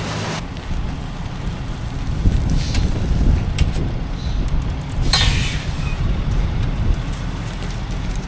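Low, uneven rumble of a truck engine with wind buffeting the microphone, and a few sharp clicks, the loudest about five seconds in.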